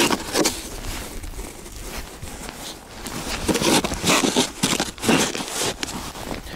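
Snow shovel chopping and scraping into hard, crusted snow to break it up, a string of irregular crunches, several close together in the second half.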